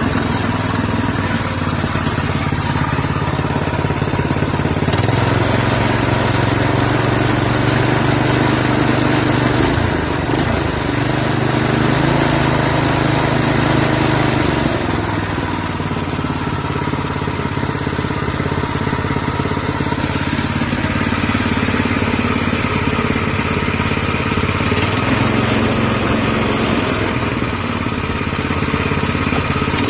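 Small single-cylinder gasoline engine fitted in a golf cart, running steadily at a low speed, its pitch rising and falling slightly a few times.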